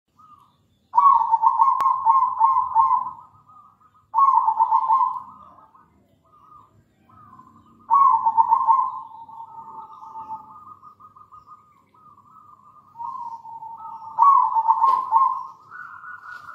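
Zebra dove (perkutut) singing: loud phrases of rapid staccato coos about a second in, around four seconds, around eight seconds and again near fourteen seconds. Softer running cooing fills the gaps between the phrases.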